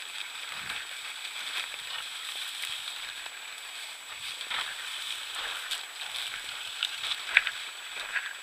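Tall dry grass and weeds rustling and crackling as they brush past someone walking through them, with one sharp click about seven seconds in.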